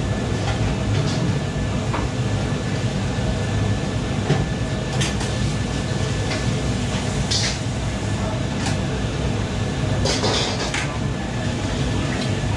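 Commercial kitchen wok station: a steady rumble from the range hood extractor and gas wok burners, with a few clinks of utensils and short hissing bursts, the loudest about ten seconds in.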